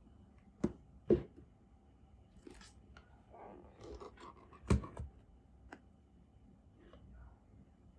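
Packaging and parts of a mechanical macropad being handled during an unboxing: a few sharp knocks and taps, the loudest just after a second in, with rustling and scraping in between.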